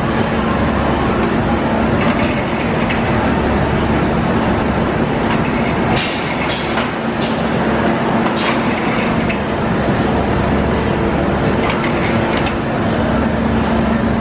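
Haas wafer production line running: a steady machine hum and rumble from the conveyors and drives, with scattered sharp clicks and clacks every second or so.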